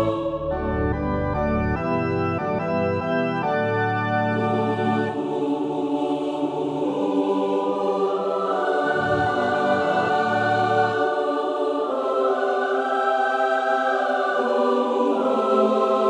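Organ playing a short passage of repeated full chords with deep bass. About four seconds in, a four-part SATB choir enters, singing sustained harmonies over lighter organ accompaniment.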